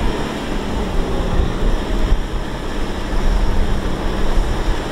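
Kubota M6040SU tractor's four-cylinder diesel engine running hard at a steady speed as the tractor churns through deep mud.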